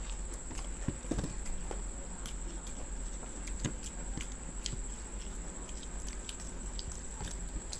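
Two people chewing and biting into samosas: scattered wet mouth clicks and smacks, with a steady high-pitched whine underneath.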